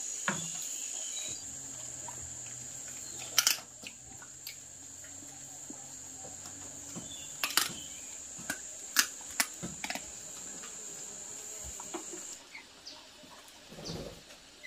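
Steady high-pitched insect buzz that stops near the end, with a few sharp clicks scattered through it.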